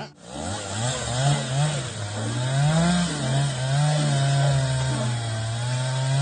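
Chainsaw running. It is revved up and down several times, then held at a steady pitch as it makes the felling cut through a large tree trunk.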